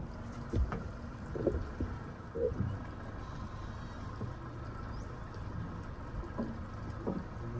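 An engine running steadily at idle, with scattered knocks and clunks.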